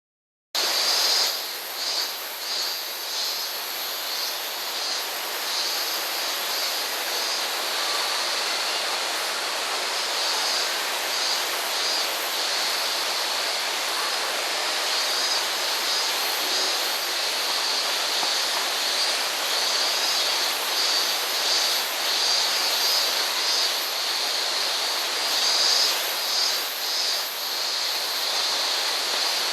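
Cicadas shrilling in a dense chorus over a steady rush of water, cutting in suddenly about half a second in.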